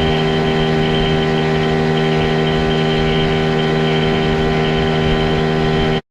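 Outboard motor running at a steady, constant speed, its pitch unchanging; it cuts off abruptly near the end.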